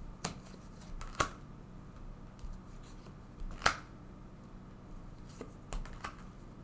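Tarot cards being drawn from a deck and laid down: a few short, light snaps and taps of card stock, about five in all, the sharpest a little past halfway.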